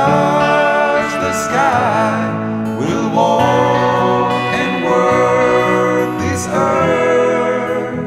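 Background music: a song with a singing voice over instruments.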